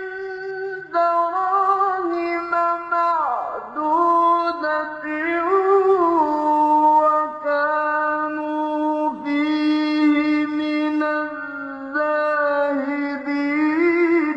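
A male reciter chanting the Qur'an in mujawwad style, drawing each phrase out into long, held, ornamented melodic lines with a few brief breaks for breath.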